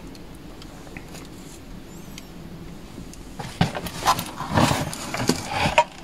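Clothes and plastic bags being rummaged through in a cabinet: after a quiet start, a spell of rustling and light knocks begins about halfway through.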